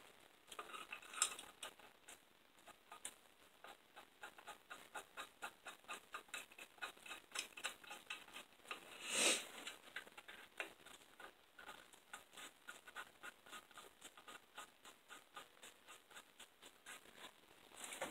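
Socket ratchet on a long extension clicking in a run of quick, even strokes, about three to four clicks a second, as a 13 mm bolt is run in on the engine. Faint, with a louder knock of tool handling about nine seconds in.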